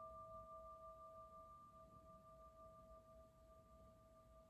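Faint ringing of a struck meditation bell, two steady pitches slowly dying away.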